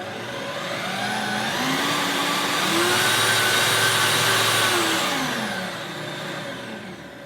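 Parkside bench pillar drill's electric motor running with no bit fitted: its whine rises in pitch as it speeds up, holds steady, then falls as it slows and winds down near the end. The owner hears a weird noise in it that he takes for a slight wobble, though he is unsure and saw nothing.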